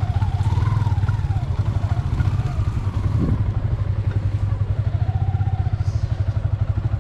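Motorcycle engine running steadily at low speed, a constant low rumble, heard from on the moving bike.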